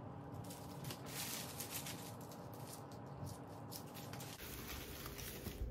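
Light rustling and crinkling of artificial flowers and their wrapping being handled, irregular and continuous, over a faint steady hum that stops about four seconds in.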